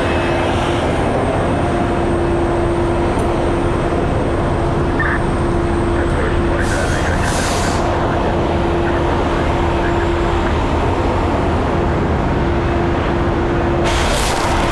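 Fire apparatus diesel engine running steadily, a constant rumbling drone with a steady hum, as it powers the truck at a working fire scene.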